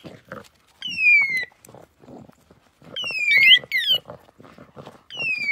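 A poisoned dog whining in distress: high-pitched cries that each fall in pitch over about half a second, heard three times, with several overlapping near the middle, and low scuffling noises between them.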